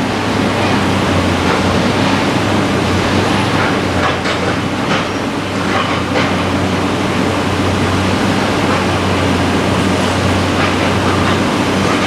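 Construction-site noise: a steady low machine drone with scattered clanks and knocks.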